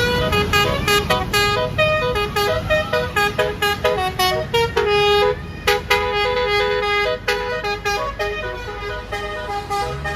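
Bus telolet horn (Basuri multi-tone air horn) playing a fast melody of short, pitch-changing notes, with a couple of longer held notes partway through.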